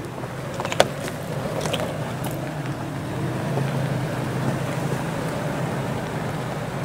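Nissan Xterra's V6 engine running steadily at low revs as the SUV crawls over a rocky trail, its tyres crunching on loose stones and gravel. A sharp knock of rock about a second in.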